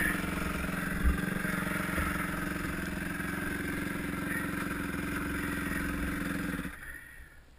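Yamaha YZ250F's 250 cc four-stroke single-cylinder engine running at low, steady revs as the dirt bike creeps along the trail, with a brief knock about a second in. The engine stops abruptly near the end.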